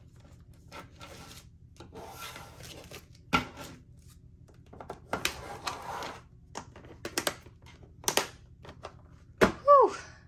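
Paper envelopes and a plastic storage box handled on a tabletop: irregular rustles, taps and knocks, with a sharp knock about three seconds in and a short falling squeak near the end.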